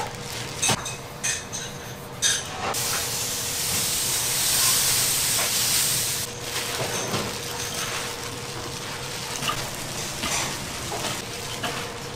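Kitchen work: a few sharp clinks of utensils, then a loud hissing rush for about three and a half seconds, then more scattered light clinks, over a faint steady hum.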